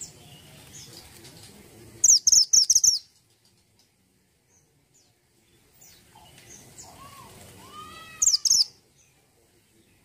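Caged mantenan gunung, a minivet, singing: a quick run of sharp, very high notes about two seconds in and another about eight seconds in, the second led by a few lower arching whistles. Faint chirps sound between the runs.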